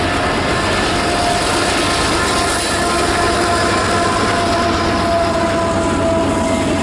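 Canadian Pacific freight train rolling past: steady rumble and clatter of the cars' wheels on the rails, with a thin steady whine of wheel squeal over it.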